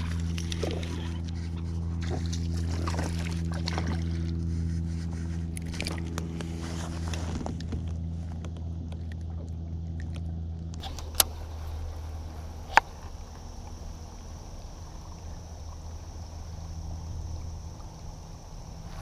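Steady low hum of a boat motor, weakening about halfway through. Two sharp knocks a second and a half apart come near the middle.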